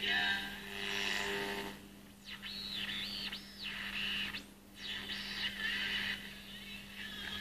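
Homemade regenerative AM receiver with an LM386 amplifier, heard through its small loudspeaker while its variable capacitor is tuned across the medium-wave band. A brief snatch of station audio gives way to whistles sweeping up and down, the heterodyne squeals that are normal for a regen set passing over station carriers, over a steady low hum.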